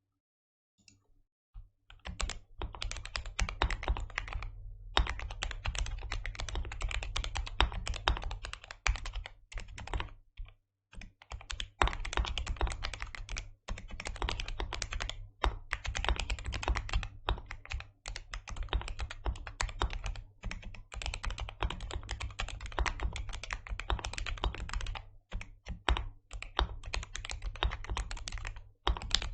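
Typing on a modded Ajazz AK33 mechanical keyboard with lubed black switches, PBT keycaps, lubed stabilizers and foam dampening: a fast, dense run of key clacks that starts about two seconds in, broken by a few short pauses.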